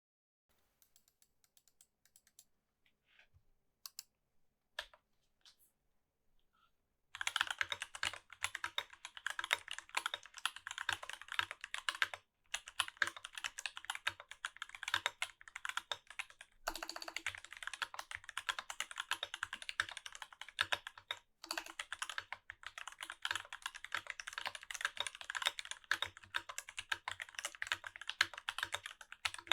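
Typing on a mechanical keyboard with lubed and filmed Durock T1 tactile switches in a brass plate, under GMK keycaps. A few isolated keystrokes at first, then from about seven seconds in fast, continuous typing, broken by two short pauses.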